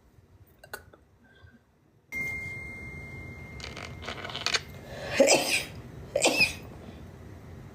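A woman sneezing several times in a row as part of a sneezing fit, the two loudest sneezes about five and six seconds in. A steady background hiss comes in about two seconds in.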